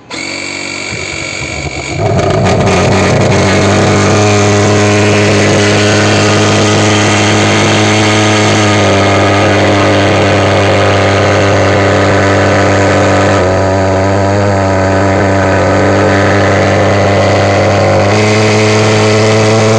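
Palmera PA120S petrol thermal fogger's pulse-jet engine starting: a thinner buzz for about two seconds, then it fires and runs with a loud, steady drone while fogging. Its pitch shifts slightly a few times.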